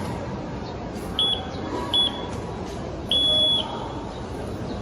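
Morse code practice buzzer keyed by hand, sounding a high-pitched tone: a short beep about a second in, another short one about a second later, then a longer one of about half a second.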